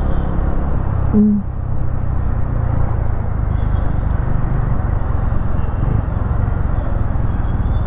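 Motorcycle on the move, a Bajaj Dominar 250: a steady low engine and road rumble under a haze of wind noise on the microphone, with a brief voice sound about a second in.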